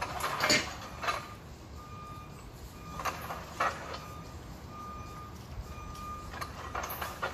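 A series of sharp knocks or clanks, the loudest about half a second in. Short faint high electronic beeps repeat several times among them.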